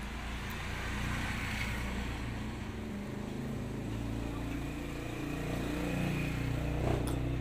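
A motor vehicle's engine running nearby, a low rumble whose pitch shifts and which grows louder in the second half.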